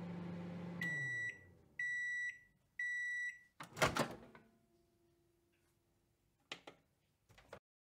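Microwave oven running with a low hum that winds down as its timer reaches zero, then three beeps about a second apart, followed by a loud clack of the door popping open. A few faint clicks come near the end.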